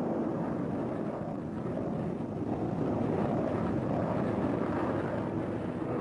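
Steady drone of a Lockheed Constellation's radial piston engines and propellers running.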